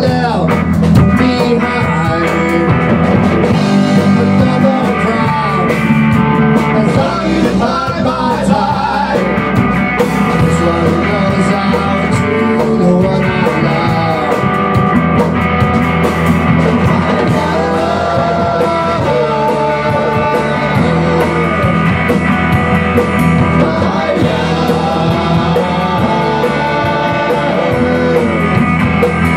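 A rock band playing a song live: electric bass, electric guitar and a Tama drum kit, with a man singing lead.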